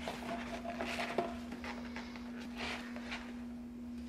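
Soft rustling and handling of a leather catcher's mitt as it is set on a stand and a small tin is put down on the mat, with a sharp click about a second in, over a steady low hum.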